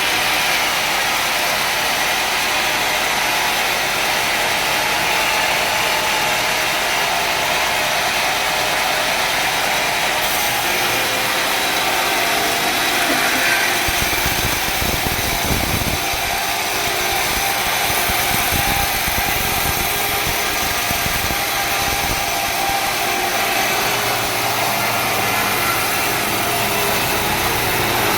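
Sawmill machinery running steadily: an engine and saw noise, with low rumbling thuds about halfway through.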